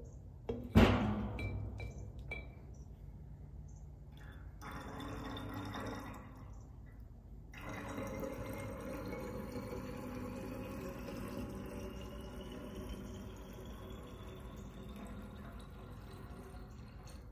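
Ethanol fuel being squeezed from a syringe into a narrow plastic test vial: a steady trickle whose faint tone rises slowly as the vial fills. A sharp click sounds about a second in.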